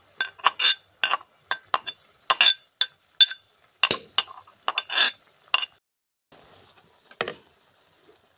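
A steel pestle clinking against a small steel mortar cup as the ground paste is knocked out into a clay pot. The sharp, irregular clinks come two or three a second and stop about six seconds in, followed by one duller knock a second later.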